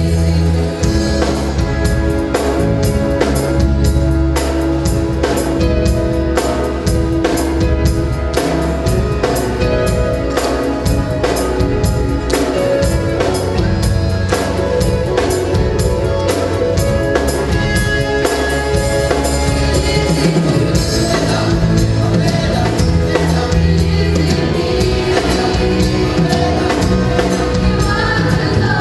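A children's choir singing in gospel style, backed by a live band with a steady drum beat.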